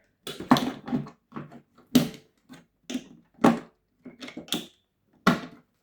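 Irregular sharp clicks and knocks of hard plastic, about ten of them at uneven spacing, as the toy washing machine's casing and parts are handled during disassembly.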